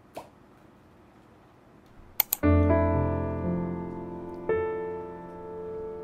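A faint crinkle as a foil lid is peeled off a plastic yogurt cup, then two sharp clicks just after two seconds. Soft piano background music comes in right after the clicks and is the loudest sound, with a new chord about halfway through.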